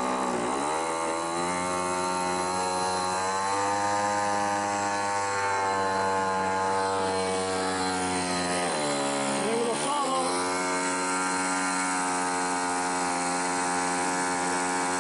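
Twin-cylinder model aircraft engine running on a test stand, spinning its propeller with a steady buzzing drone. Its speed sags and picks back up just after the start and again about nine seconds in, then holds steady.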